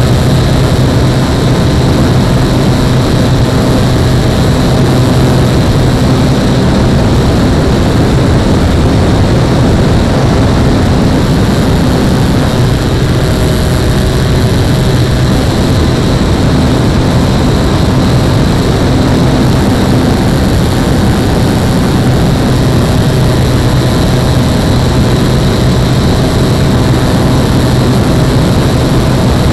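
RC model SR22 trainer plane's motor and propeller running steadily in flight, heard from a camera mounted on the plane, with a dense rush of wind over the microphone.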